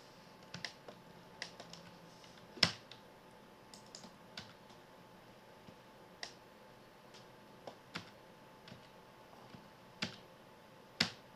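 Irregular clicking of a computer keyboard and mouse, a few keystrokes at a time, with a louder click about two and a half seconds in and another near the end.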